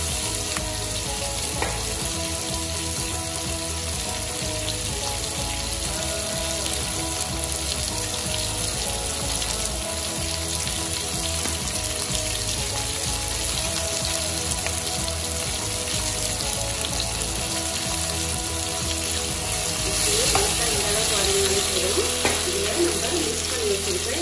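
Chopped onion, tomato and capsicum sizzling in hot oil in a frying pan, getting louder near the end, under background music.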